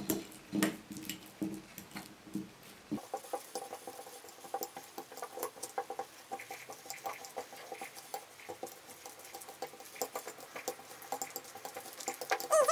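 A fork mashing peeled bananas into a purée in a bowl: rapid, irregular clicks and taps of the tines against the bowl.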